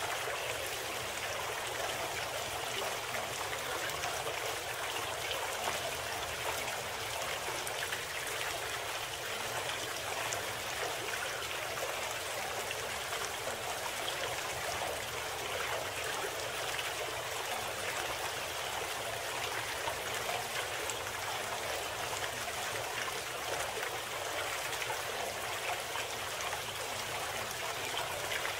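Steady flowing water like a babbling stream, an even wash with no change in level.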